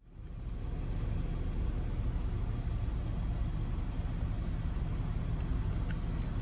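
Steady low rumble of outdoor background noise, fading in over the first half-second, with a few faint ticks.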